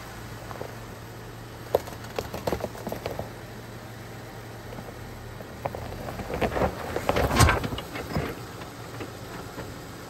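Jeep Wrangler Rubicon crawling slowly in four-wheel low, its engine running low and steady while the tires crunch and pop over gravel and stones. There are scattered crunches about two to three seconds in and a louder run of them around seven seconds in.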